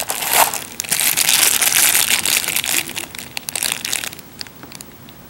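Thin plastic packaging bags crinkling as they are handled and pulled out of a box. The crinkling is dense and loud for the first three seconds, then breaks into a few scattered crackles.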